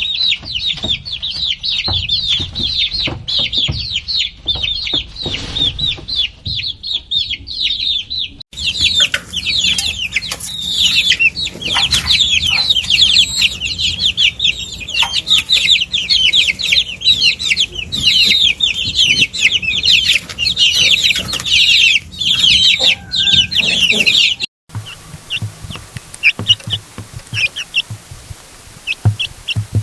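A crowd of baby chicks peeping incessantly, many high, downward-sliding peeps overlapping. The sound cuts abruptly twice, and in the last few seconds the peeps are fewer and quieter.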